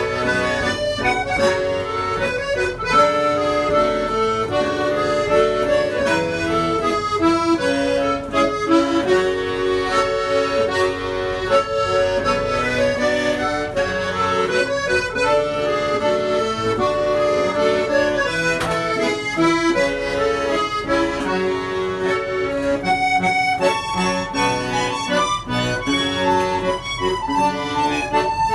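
Piermaria button accordion (bayan) playing a folk tune, with a Kazakh dombra strummed along with it.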